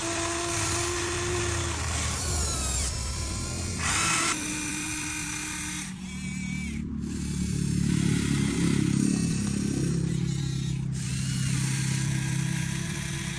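Small electric motors and gearboxes of a Huina 1593 RC excavator whining as the arm, bucket and cab are worked. The whine starts, stops and changes pitch every second or two. A lower, louder drone comes in about halfway through.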